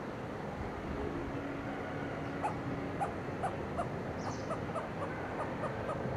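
Grey hornbill giving a rapid run of short, sharp call notes, about four a second, starting a little over two seconds in and lasting about three seconds, over a steady hiss of forest background.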